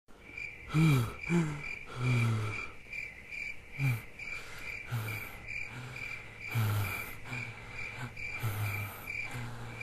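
Crickets chirping steadily, about two chirps a second, with short low vocal sounds over them, several falling in pitch, every second or so.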